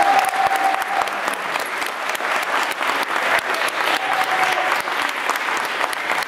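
Audience applauding steadily. A held note from the end of the song fades out about a second in.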